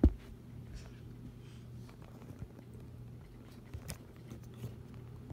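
A single dull thump, then faint scattered clicks and rustles over a low steady hum, as the phone filming from the carpet is handled and picked up.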